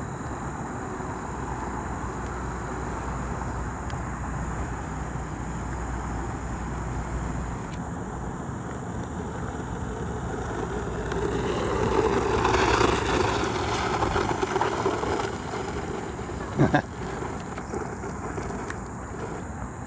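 Hosim four-wheel-drive RC truck running, its motor and tyres growing louder for a few seconds past the middle, over a steady hiss with a thin high steady tone. A short sharp knock near the end.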